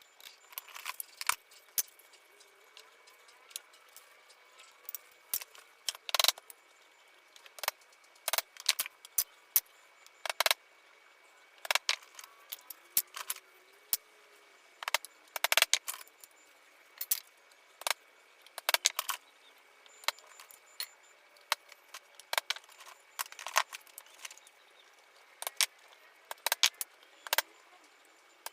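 Irregular sharp clicks and knocks of wooden shutter parts being handled, fitted and tapped together during assembly. Some come in quick clusters, with the loudest knocks at about 6, 10, 12 and 15 to 16 seconds in.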